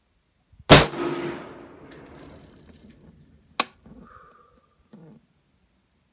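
A single rifle shot from a Smith & Wesson M&P 10 semi-automatic .308 firing Federal Fusion 165-grain ammunition, followed by a long echoing tail. About three seconds later comes a much quieter sharp click, then a few faint knocks.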